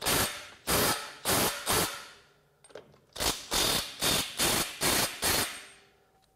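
Cordless impact wrench hammering a lug nut in short trigger pulls, about ten brief rattling bursts with a pause after the first four. It is driving an oversized socket in the tightening direction against a nut already torqued to 140 ft-lb, to strip and round the nut off.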